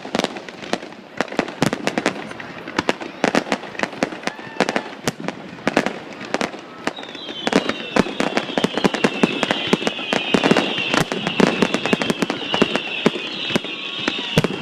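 Fireworks going off: a rapid, unbroken string of sharp bangs and crackles. From about halfway through, many overlapping high whistles join in, each falling in pitch, over and over.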